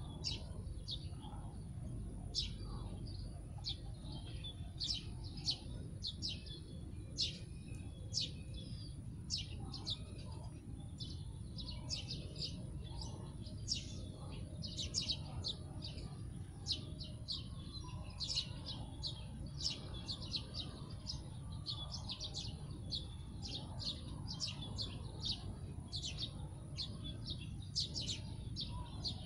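Many small birds chirping in quick, short, high notes, scattered and overlapping throughout, over a steady high-pitched insect drone and a low background rumble.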